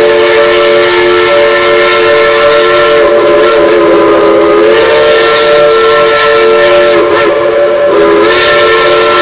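Several Shay steam locomotive whistles blowing together in long held blasts, sounding as a chord of different pitches that sag and waver now and then, over loud steam hissing.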